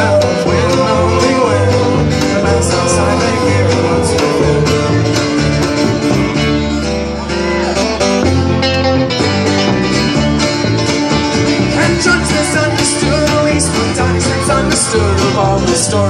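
Live band playing a country-rock song on acoustic guitar, upright bass, electric guitar and banjo, in a stretch without lyrics between verses.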